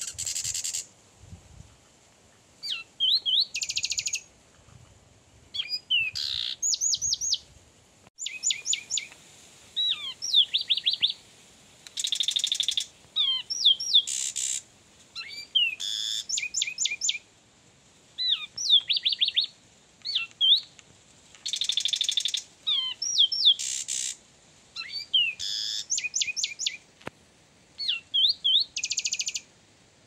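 Zapata wren singing: phrases every second or two of fast, clear rising whistled notes, alternating with short harsh buzzy rattles.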